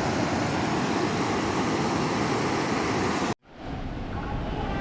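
Steady rushing of flowing water at a dam. It cuts off abruptly about three and a half seconds in, then returns with a duller, deeper rumble.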